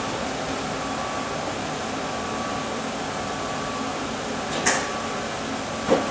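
Steady hiss and hum of a 66-key Gavioli street organ's air supply running between tunes, with a short high hiss about four and a half seconds in.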